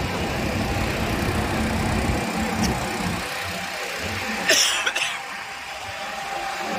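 A fire engine's motor running steadily, with a short harsh burst about four and a half seconds in.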